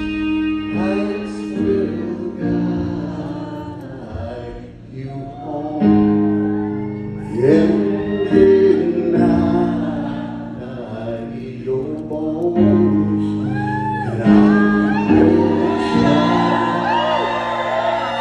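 Live band music: sustained electric guitar chords ringing under singing, with the echo of a large hall.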